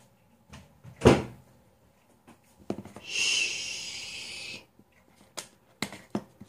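Kitchen cupboard door and containers being handled: scattered clicks and knocks, the loudest a sharp knock about a second in, likely the cupboard door shutting. Midway a steady hiss lasts under two seconds, then stops abruptly.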